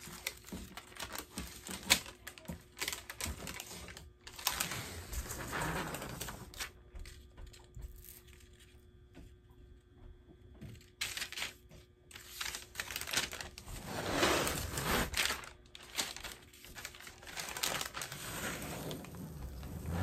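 Backing paper being peeled off a peel-and-stick floor plank: a dense crackling of the adhesive letting go, in several pulls, with a quieter stretch about halfway through.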